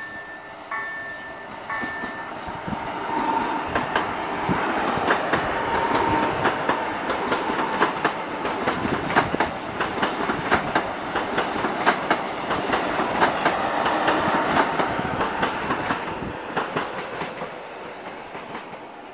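PKP Intercity electric multiple unit passing over a level crossing, its wheels clattering over rail joints, the sound swelling and then fading near the end. At the start the crossing's EDG-2005 electronic warning bells strike about once a second.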